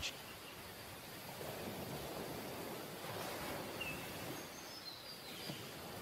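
Faint steady background noise, with a few faint, short, high chirps about four to five seconds in.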